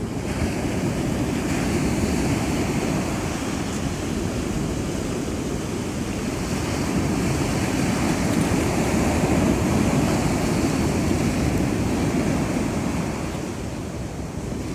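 Ocean surf breaking and washing in, a steady rush that slowly swells and eases, with wind buffeting the microphone.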